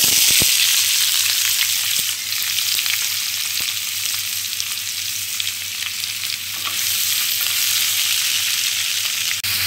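Sliced onions sizzling in hot coconut oil in an aluminium kadai, starting suddenly and loudest as they are tipped into the oil, with a few light clatters as they land, then settling into a steady sizzle.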